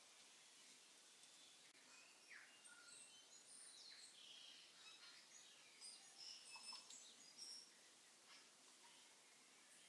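Faint sizzling of sliced onions frying in oil in an Instant Pot's stainless steel inner pot, with scattered small crackles and pops as a wooden spoon stirs them.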